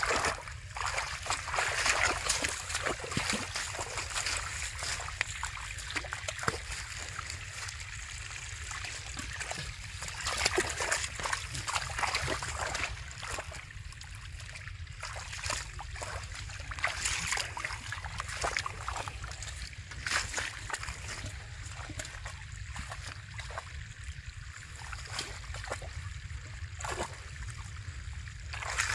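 Hands splashing and sloshing through shallow muddy water in irregular bursts, with small drips and clicks, over a steady low rumble.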